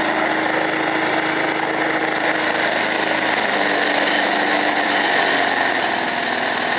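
Briggs & Stratton Sprint 375 single-cylinder four-stroke lawnmower engine running steadily, still going with berries fed into its intake. Its pitch sags a little about three and a half seconds in and again near five seconds.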